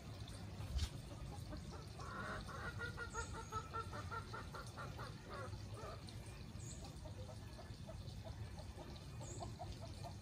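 Chicken clucking: a quick run of clucks, about five a second, starting about two seconds in and lasting some four seconds, then softer clucks trailing on. A brief low thump comes just before a second in.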